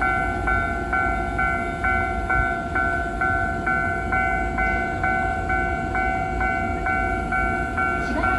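Japanese railway level-crossing electronic alarm ringing its standard low-pitched clang, about two strokes a second, over a low rumble.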